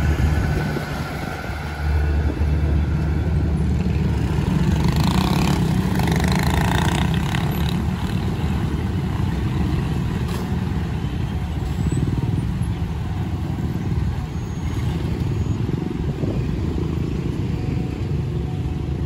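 The tail of a passenger train rumbles past for about the first two seconds, then a crowd of motorcycles and cars drive over the railway level crossing, small engines running and pulling away.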